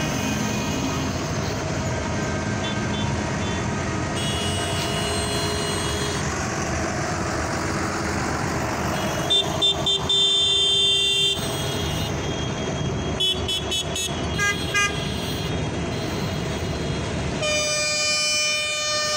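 A convoy of farm tractors passing with diesel engines running, horns honking over them: a few short toots and then a long blast about halfway through, more short toots a little later, and a long many-toned horn starting near the end.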